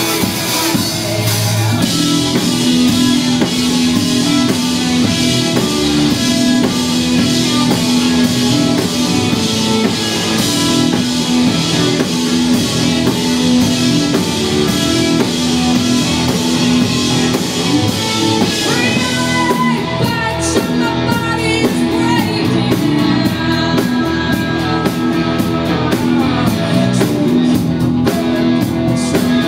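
Rock band playing live, with electric guitar, bass and drum kit, and a woman singing.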